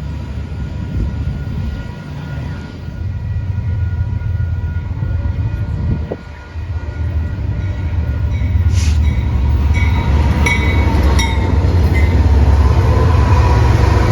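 A train running past: a heavy low rumble that grows louder through the second half, with a few sharp clicks from the wheels and rails about nine to eleven seconds in.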